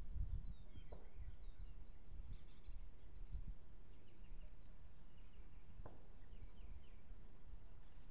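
Outdoor ambience: wind rumbling unevenly on the microphone, with faint bird chirps now and then.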